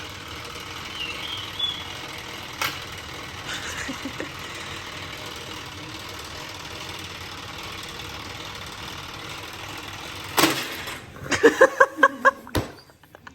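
Timed shape-sorting board game's platform popping up with a sudden loud clatter about ten seconds in, followed by a short burst of laughter, over a steady background hum.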